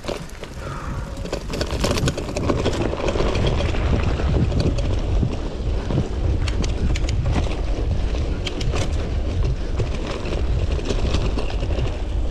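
Wind buffeting the microphone of a mountain bike moving fast downhill, with knobby tyres running over dirt and scattered sharp rattles and clicks from the bike. The rumble builds over the first two seconds as the bike gathers speed.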